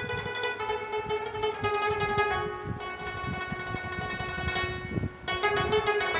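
Background music led by a plucked string instrument, with held melodic notes over light percussion; it drops out briefly about five seconds in.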